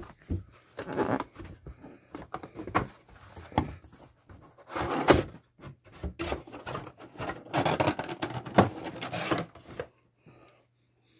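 Trading card packaging being handled and opened by hand: irregular rustling and tearing with scattered clicks and knocks, stopping about ten seconds in.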